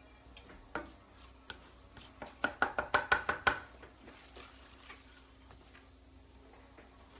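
A knife chopping on a cutting board: a few single chops, then a quick run of about ten chops a little over two seconds in.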